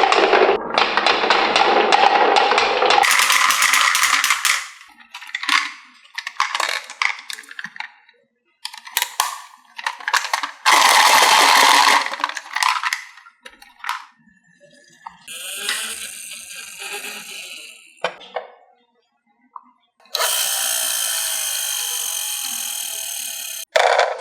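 Marbles and toy vehicles rolling and clattering down a HABA marble run. The rattling comes in a string of separate runs with short pauses between them, and there is a longer, even rolling stretch near the end.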